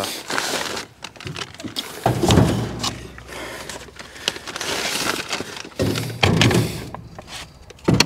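Handling noise as balls of sisal baler twine are unpacked and set into the canisters of a square baler's twine box: the bag rustling and the twine balls and canisters knocking with dull thunks at irregular moments.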